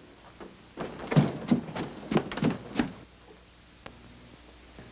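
A run of about eight irregular thuds and taps over two seconds, then a single faint tick.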